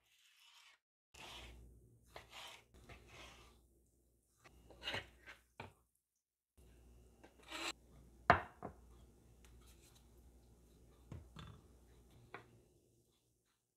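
Knife cutting raw boneless chicken breast on a cutting board, with rubbing and scraping as the pieces are pushed off the board into a glass bowl, and soft knocks of the board and bowl. One sharp knock about eight seconds in is the loudest sound.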